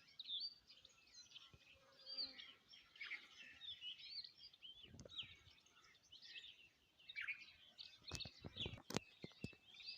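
Several small birds chirping and twittering quietly, with many short, quick notes that rise and fall in pitch and overlap. A few sharp clicks or taps come about five seconds in and again in a quick cluster near the end.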